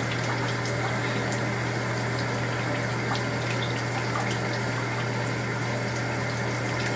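Shower water spraying steadily, with a constant low hum underneath and a few faint ticks.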